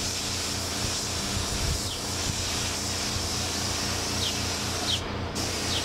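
Air-atomizing paint spray gun hissing steadily as orange paint is sprayed onto a motorcycle fairing. The hiss cuts out briefly about five seconds in as the trigger is let off, then resumes.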